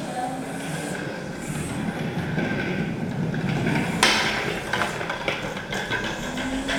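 A child's bike rolling over wooden floorboards with a steady rumble, a sharp knock about four seconds in, then a run of clicks and knocks.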